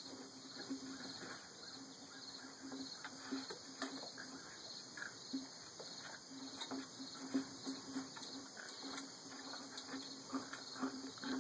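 Boston terrier puppies scuffling over a cardboard carpet tube on wooden decking: scattered light scrapes, taps and claw clicks. A steady, evenly pulsing chirping of insects runs underneath.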